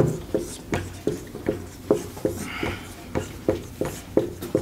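Marker writing numbers on a whiteboard: a quick run of short taps and squeaks, about three a second, as each digit and line is stroked onto the board.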